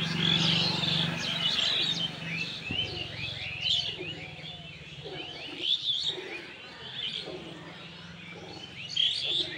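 Many small birds chirping and calling at once, a busy chorus of short, quick chirps.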